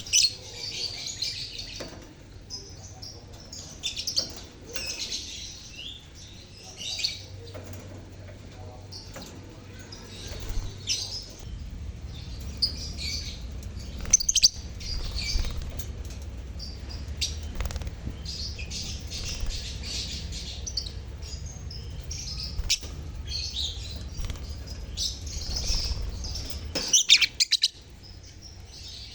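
A colony of lovebirds (Agapornis) in an aviary chattering, in repeated bursts of shrill high chirping and twittering, over a low steady rumble.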